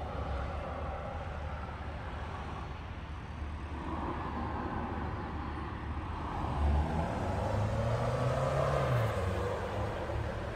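Road traffic: a motor vehicle passes over steady outdoor background noise, its low engine hum swelling and rising and falling in pitch between about six and nine seconds in.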